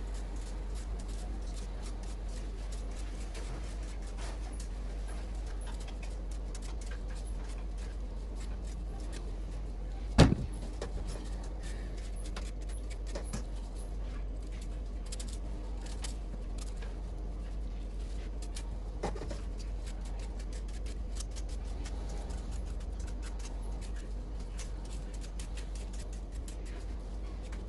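Knife peeling raw sweet potato by hand: many small scraping clicks as the blade cuts the skin, over a steady low hum. A single sharp knock about ten seconds in, with a few fainter knocks later.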